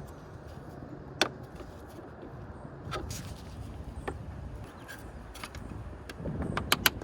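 Scattered sharp clicks and knocks of parts and tools being handled under the bonnet, one every second or two, with a quick run of clicks near the end.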